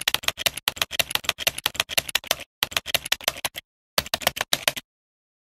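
Typewriter-key sound effect: rapid, sharp clicking at about eight keystrokes a second, in runs with two short breaks, stopping abruptly about half a second before the end.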